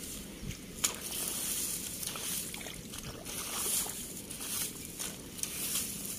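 Hands digging and squelching in wet mud and shallow water among rice straw, with irregular sloshing and a short sharp click about a second in.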